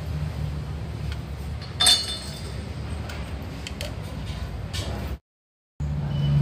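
A single sharp metallic clink with a brief ring about two seconds in, then a few light metal ticks, as a crankshaft is handled in a lathe chuck, over a steady low machine hum. The sound cuts out for about half a second near the end.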